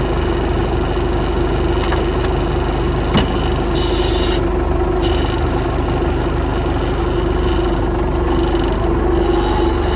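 Tractor engine idling steadily, with a single short knock about three seconds in.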